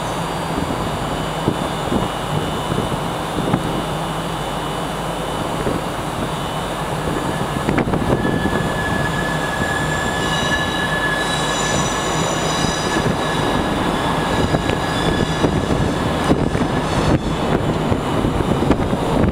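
A train's steady rumble and hum, with a thin high squeal that comes in about seven seconds in and fades out a few seconds later.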